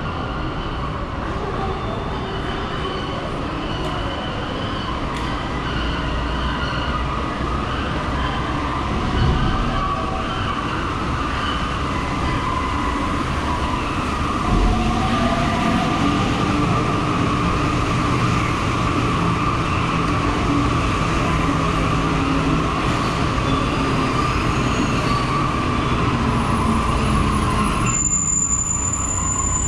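Rubber-tyred metro train running, with a continuous rumble and a steady whine. Near the end the sound changes abruptly and thin high-pitched tones appear.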